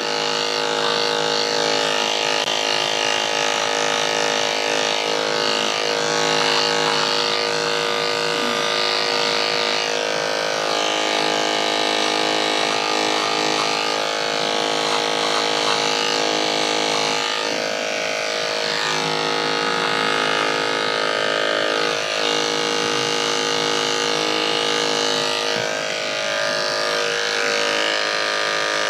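Andis two-speed electric dog clippers with a #10 blade running with a steady buzz as they shave a dog's coat short.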